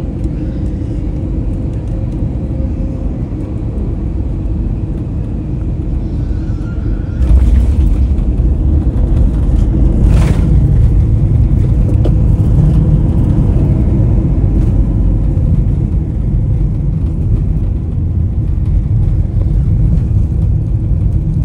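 Airliner cabin noise on landing: steady engine and airflow noise, then about seven seconds in the wheels touch the runway with a sudden thump and a much louder low rumble sets in as the plane rolls along the runway, with a second brief thump about three seconds later.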